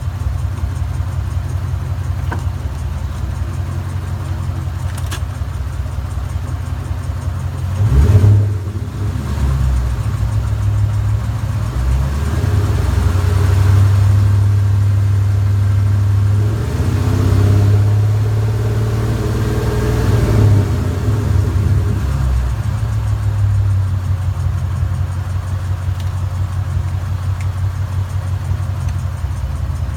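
A 2014 Mustang GT's 5.0 V8 running without catalytic converters, idling, blipped sharply about a quarter of the way in, then held at raised revs for about ten seconds with a couple of quick blips before dropping back to idle. This is the engine whose intermittent tick the owner suspects comes from the cam phasers or lifters.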